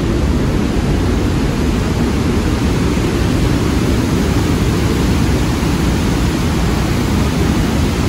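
Waterfall pouring down inside a mountain: a steady, loud rush of water, deepest and heaviest in the low end, with no let-up.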